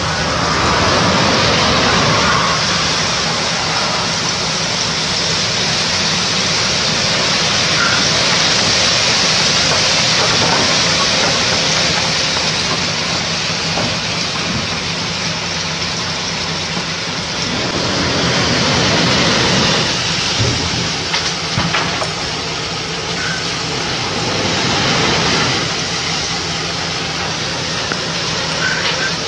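Load of coal sliding and pouring out of a tipped dump truck body, a steady rushing hiss over the truck's engine running, with a few knocks about twenty seconds in.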